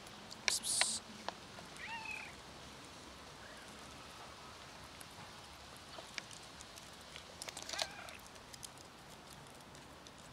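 Stray cats meowing: two short meows, about two seconds in and again about eight seconds in. Shortly before the first meow there is a brief high-pitched rustle, the loudest sound here, and light clicks are scattered throughout.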